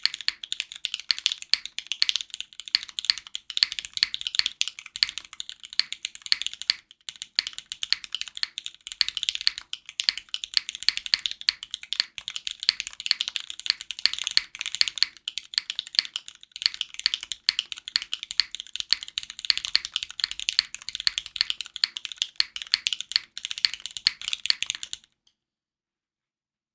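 Fast, continuous typing on a Keycult No.1 60 custom mechanical keyboard with Cherry MX Black linear switches, GMK keycaps and an aluminum plate: a dense run of key clacks that stops abruptly near the end.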